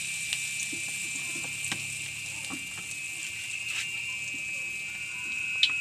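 Corn fritter batter deep-frying in hot oil in an aluminium wok: a steady sizzle with scattered small pops, and one sharper click near the end.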